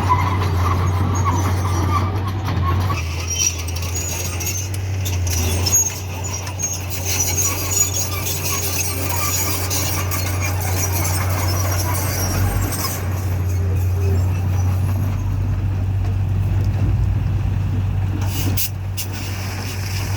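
Dump trucks and a bulldozer working, with a steady low drone.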